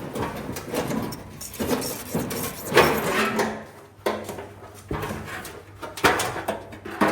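Irregular clattering and rustling of truck body parts being handled and fitted, with sharp knocks about three seconds in, at six seconds and again near the end.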